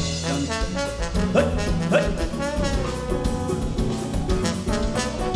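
Live samba band playing an instrumental break between sung choruses, with a trombone carrying the melody over drum kit, hand drums, bass and guitar.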